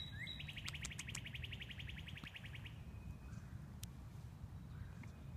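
A songbird singing: a quick rising note, then a rapid, even trill of about ten notes a second that stops after about two and a half seconds. A low steady rumble runs underneath, with a single faint click near the end.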